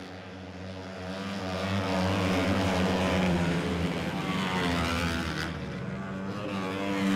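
A pack of flat-track racing motorcycles at full throttle on a dirt oval, several engines running at high revs together. The sound swells as the pack passes at about two to three seconds, eases off, then rises again near the end as more bikes come by.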